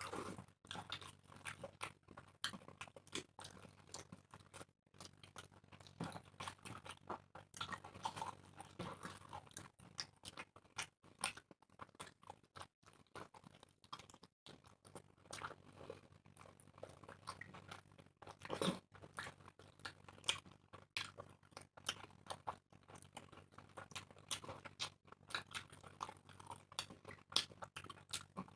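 Close-up eating sounds of people chewing puri with egg curry: irregular wet mouth smacks and soft crunches. There is one louder sharp click about two-thirds of the way through.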